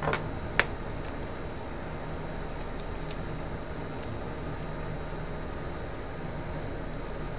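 Small fawn bones being handled during gluing: one sharp click about half a second in, then a few faint light ticks, over a steady low hum.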